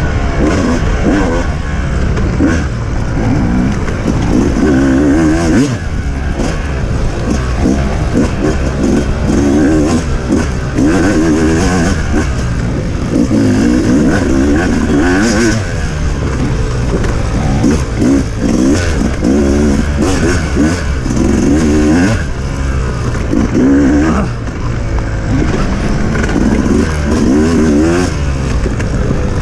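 Off-road motorcycle engine being ridden hard, revving up and dropping back again and again every second or two as the rider works the throttle and gears.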